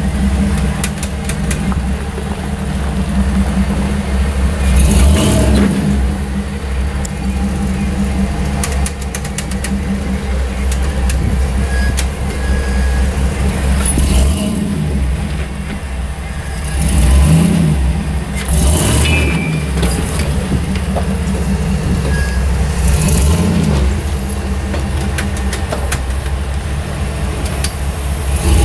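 Jeep Wrangler YJ's engine pulling under load as it crawls over boulders, its steady low drone rising in several swells of revving.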